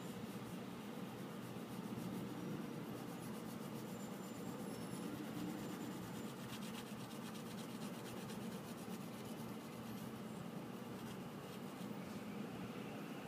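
Mechanical pencil scratching on kraft-paper sketchbook paper in quick, repeated hatching strokes.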